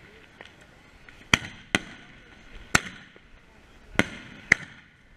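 Fireworks going off: five sharp bangs at uneven intervals, starting about a second in, each trailing off with a short echo.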